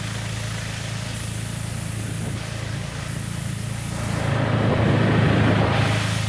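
An engine running steadily with a low hum. About four seconds in, a louder rushing noise swells up for a couple of seconds and then falls back.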